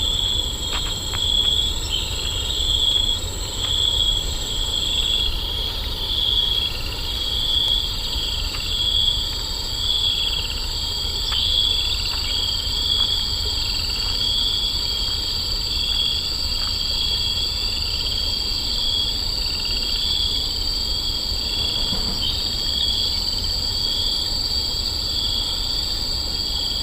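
Insects chirping: one high chirp repeating about once a second over a steady high-pitched trill, with a low rumble beneath.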